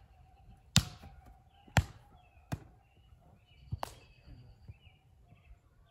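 Volleyball struck by hands during a rally: four sharp smacks, the first two the loudest, roughly a second apart.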